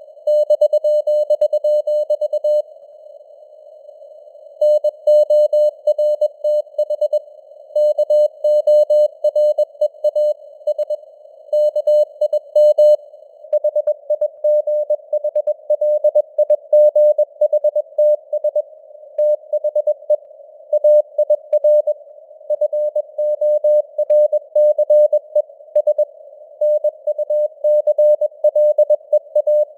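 Morse code (CW) sent at 21 words per minute: a single tone of about 600 Hz keyed on and off in dots and dashes, with a longer gap about three seconds in. Underneath runs a narrow band of simulated receiver hiss, and the signal's strength fades up and down (QSB).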